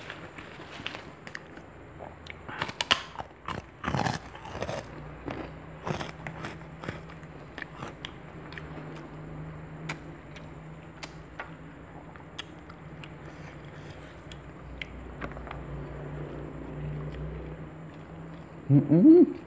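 Close-up eating sounds: chewing and crunching food, with scattered short clicks and taps. Near the end, a couple of short, loud rising-and-falling vocal sounds.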